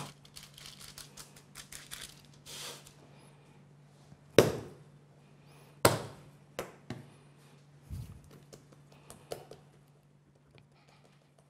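Hands pressing and stretching bread dough flat on a wooden worktop, with scattered knocks against the wood; two sharper knocks stand out about four and six seconds in.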